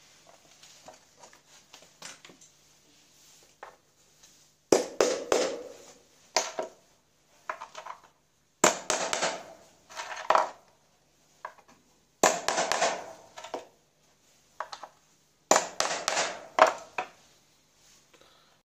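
Claw hammer driving nails into a board: four bursts of quick blows, each lasting a second or so, with a few lighter taps before them.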